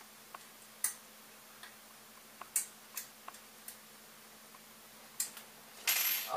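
Scattered light clicks and taps of small 3D-printed plastic parts being handled and fitted onto a 3D printer's frame, with a short rustle near the end.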